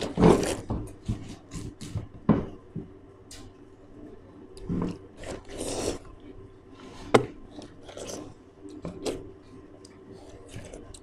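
Several people eating watermelon slices as fast as they can: irregular short biting and slurping sounds, with a few sharper clicks now and then.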